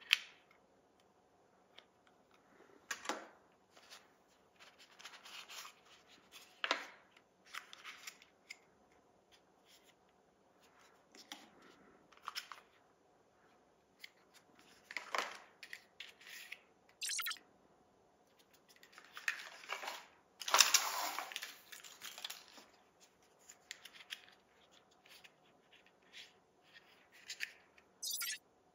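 Hands handling cardboard packaging: scattered rustles, slides and scrapes of paper and card, with a longer scraping rustle about twenty seconds in as the loudest part. A sharp click at the very start as the clear plastic case of the Nothing Ear (a) earbuds is closed.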